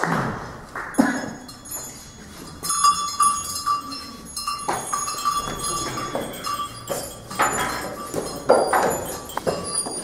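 Applause dies away over the first couple of seconds. Then small metal bells clank in quick, uneven strokes, mixed with knocks of wooden staffs on the floor, as the shepherds walk.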